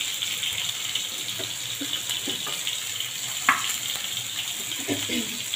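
Steady sizzling hiss of fish frying on the stove, with a few light clicks of cookware and one sharp clack about three and a half seconds in.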